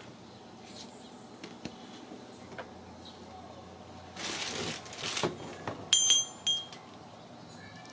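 Ragdoll kittens playing among cardboard toys: light scattered taps, a brief scraping rustle about four seconds in, then several sharp knocks and a short, loud clinking ring around six seconds.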